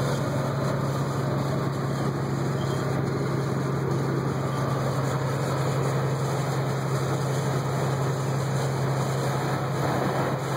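Steady engine drone and road and wind noise inside a truck's cab at highway speed, with a strong low hum throughout.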